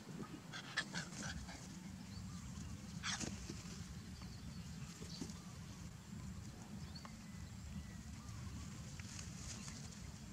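A dog growling low and steadily, with a few short sharp sounds near the start and about three seconds in.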